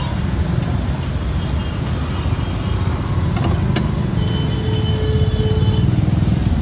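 Steady low rumble of street traffic, with two faint clicks about three and a half seconds in and a faint held tone a little past the middle.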